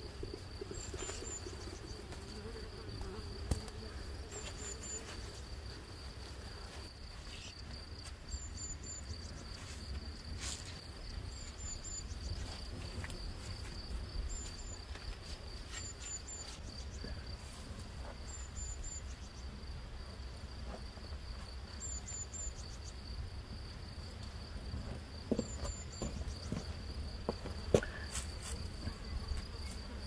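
Insects trilling steadily at a high pitch, with short, higher chirps in twos and threes every couple of seconds. A few light knocks come near the end.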